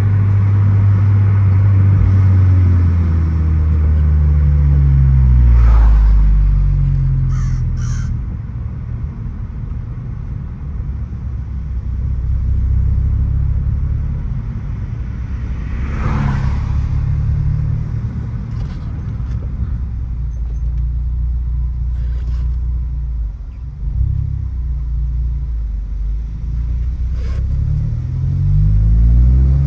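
Exhaust of a 9th-generation Honda Civic Si with a Yonaka 3-inch exhaust and catless downpipe, running loud and low. Its revs drop over the first few seconds, hold fairly steady at low revs through the middle, and climb again near the end.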